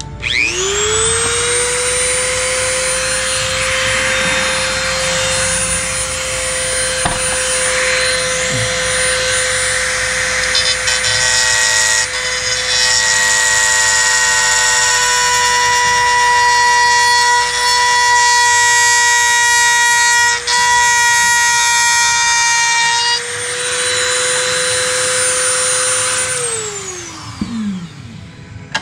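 High-speed rotary tool spinning up, then running steadily at a high constant whine for about 25 seconds while grinding away plastic to ease a snug-fitting part, and winding down near the end.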